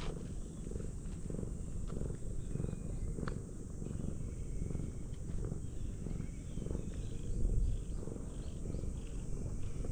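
Orange tabby cat purring steadily while being stroked on the head and cheek, close to the microphone, with a brief low rumble about seven and a half seconds in.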